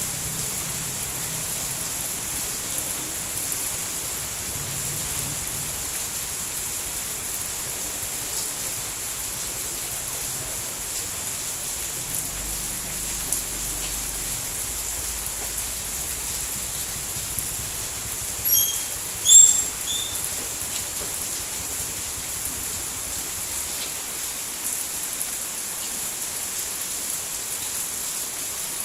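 Steady, even rain noise from a downpour. A few short high chirps break through about two-thirds of the way in.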